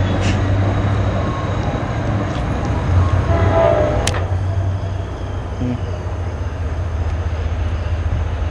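NJ Transit commuter train rolling past and away, its cab car last, as a steady low rumble. About four seconds in, a sharp click cuts to a slightly quieter steady rumble.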